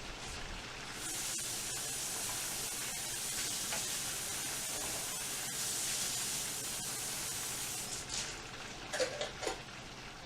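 Steady hissing from stovetop cooking that starts about a second in and cuts off sharply about seven seconds later, with a few short clinks near the end.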